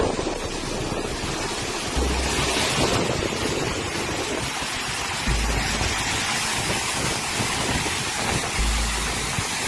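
Muddy floodwater pouring over a rock ledge in a steady rush, with three short low thumps of wind on the microphone.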